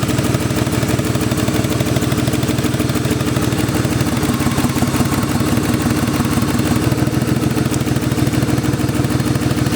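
BMW E36 engine idling roughly with a misfire, steady throughout. An ignition coil is unplugged and the idle does not change, a sign that this cylinder is probably the misfiring one.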